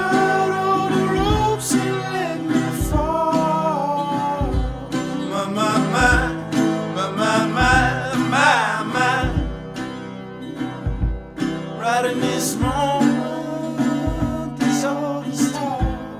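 Background music: a song with a singing voice over acoustic guitar.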